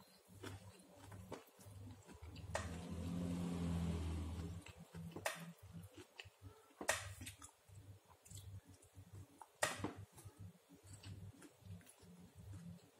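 Close-up eating sounds of a napa cabbage pancake being chewed: soft wet chewing and mouth noises with a few sharp clicks. About two and a half seconds in, a low steady hum swells for about two seconds.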